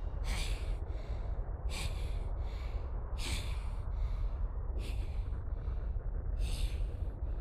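Heavy, laboured breathing from an anime character: about five pairs of in-and-out breaths, evenly spaced, over a steady low rumble.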